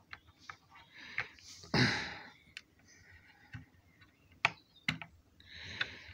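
Light clicks and taps of fingers and thumbnail on a toy General Lee car as its bonnet is pried at without opening, with two sharp clicks about four and a half and five seconds in. A couple of soft hissing rustles come in between.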